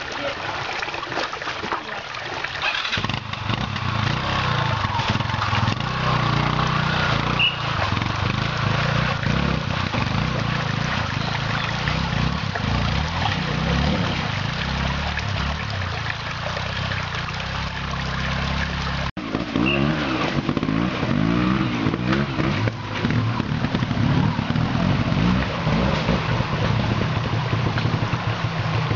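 Trials motorcycle engine running at low revs as the bike climbs a rocky creek bed, the revs rising and falling unevenly in short blips. The sound drops out for an instant about two-thirds of the way through.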